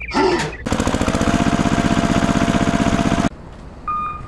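Engine sound of a small tractor: a fast, even chugging with a steady hum, starting about a second in and cutting off abruptly after a little over two seconds. A short voice-like sound comes before it, and an intermittent high beeping begins near the end.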